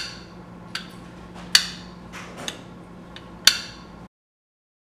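Small hard parts of an assembled handheld object clicking and knocking together as a hand handles it, six sharp clacks in about three and a half seconds over a faint steady hum. The sound cuts off suddenly about four seconds in.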